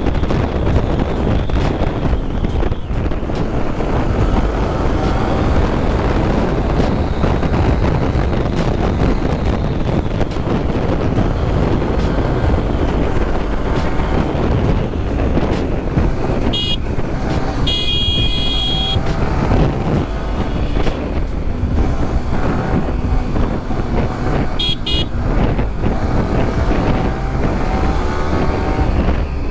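Yamaha R15 V3's single-cylinder engine ridden at speed, its pitch rising as it revs, under a steady rush of wind and road noise. Vehicle horns honk: a short toot a little past the middle, a longer one just after it, and another short one about 25 seconds in.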